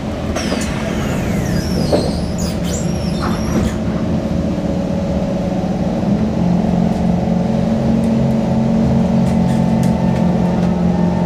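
MRT train doors closing with a knock about two seconds in, then the train's electric traction motors starting up. From about six seconds in, a steady hum of several tones builds as the train starts to pull away.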